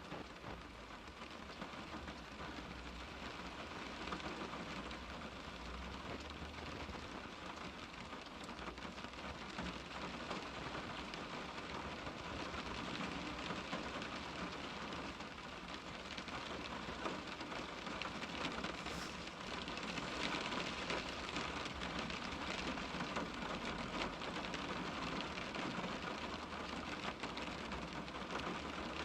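Rain falling steadily on a car's window glass, heard from inside the car: a dense patter of many drops that grows gradually a little louder.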